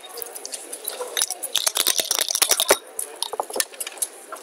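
Backgammon dice rattling in a dice cup and clattering onto the board: a rapid run of clicks from about a second in, lasting a little over a second. Scattered single clicks of dice and checkers being handled come before and after.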